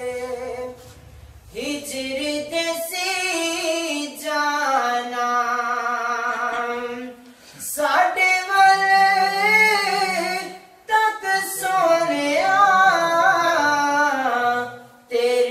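A man singing a Punjabi naat in long, wavering held notes, with short breaks between phrases.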